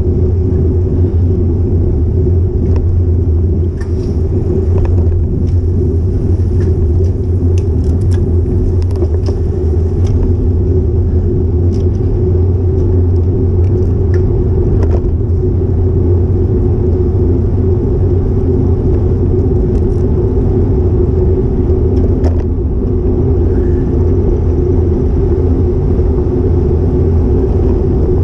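Steady low rumble of wind buffeting a small action camera's microphone, with road vibration, as a road bike rides along at speed, and a few faint clicks in the first half.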